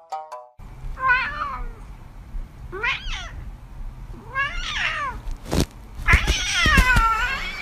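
Domestic cat meowing four times, each call rising and falling, the last one long and drawn out near the end. A couple of soft thumps come just before the last meow.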